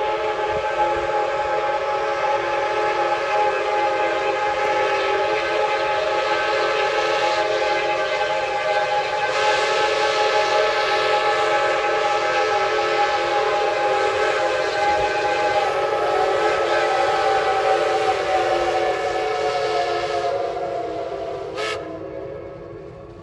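Geared steam locomotive's chime whistle blowing one long chord of several steady notes for about twenty seconds over a hiss of steam. One note sags slightly in pitch before the whistle dies away.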